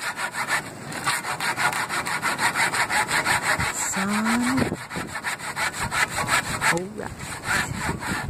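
Handsaw cutting along a wooden board in quick, even back-and-forth strokes; the saw is dull and in need of sharpening. A short rising squeak sounds about four seconds in.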